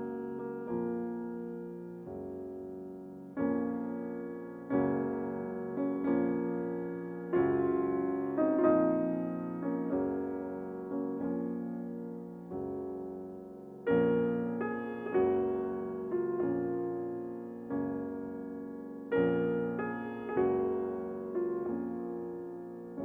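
Background piano music: slow chords struck about once every second and a bit, each ringing and fading before the next.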